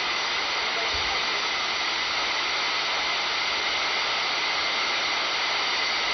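Steady FM radio hiss from a web SDR receiver tuned to a 27 MHz CB channel with its squelch open, in a gap between transmissions.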